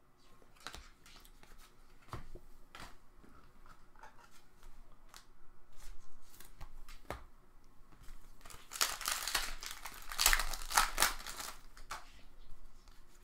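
Trading cards handled with light clicks, then a card pack's wrapper crinkling and tearing open about nine seconds in, the loudest part, for three seconds or so.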